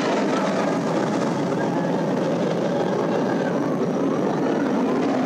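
Bolliger & Mabillard hyper coaster train running along its steel track at speed: a steady, even rumbling roar of wheels on rail.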